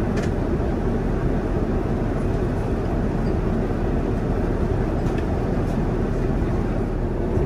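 Cabin noise inside a Boeing 787-9 airliner: a steady, even low rumble of engines and airflow.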